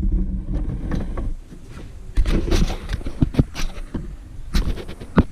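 Handling noise from the camera being picked up and repositioned close to the microphone: a low rumbling rub at first, then a quick run of clicks and knocks in the second half.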